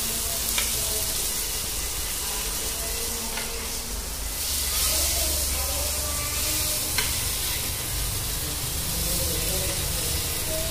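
Eggplant slices sizzling as they shallow-fry in oil in a nonstick pan, stirred with a spatula, over a low steady hum. A few light clicks come through.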